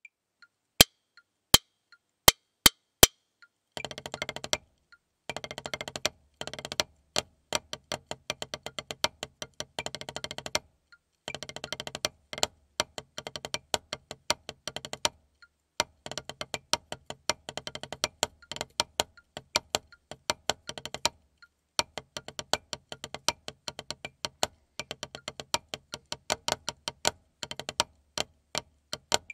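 Wooden drumsticks playing a rudimental snare-drum solo on a rubber practice pad: dry, sharp taps in fast runs and rolls with spaced accented strokes and short breaks. A few single sharp clicks sound before the playing starts about four seconds in.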